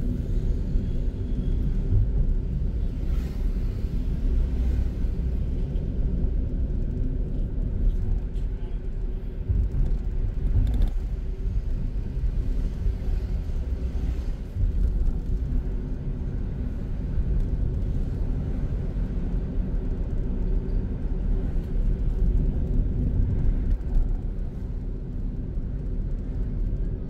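Car driving on city streets, heard from inside the cabin: a steady low rumble of engine and road noise.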